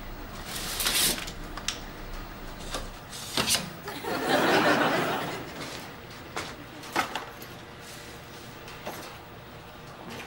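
Studio audience laughing, swelling about four seconds in, with a few sharp clicks and knocks from things being handled.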